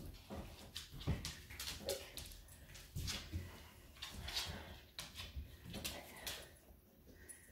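A dog's claws tick irregularly on a hardwood floor as it walks about, with one short faint whimper about two seconds in.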